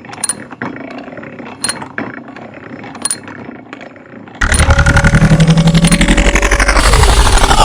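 Sound effect: a few sharp clicks over a low background, then about four seconds in a sudden loud, rapidly pulsing engine-like rumble that drops in pitch near the end.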